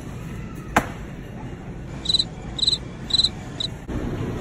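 Four short, high-pitched chirps about half a second apart, over a steady low background hum, with one sharp click about a second in.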